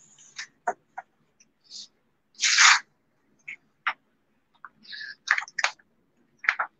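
Paper handling as a large illustrated book of drawings is lifted and opened on a desk: short scattered rustles and taps, the loudest a brief rustle about two and a half seconds in.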